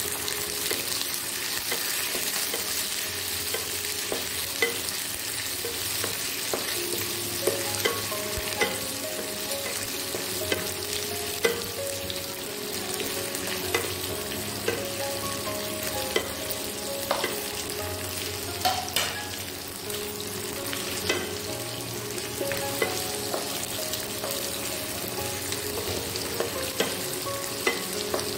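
Sliced onions and chopped garlic frying in hot oil in a wok: a steady sizzle, with the spatula tapping and scraping against the pan many times as it stirs.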